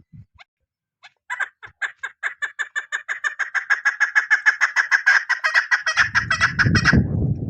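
Female chukar partridge calling: a long, fast run of short clucking notes, about seven or eight a second, starting about a second in and stopping near the end. A low rumbling noise comes in under the last notes.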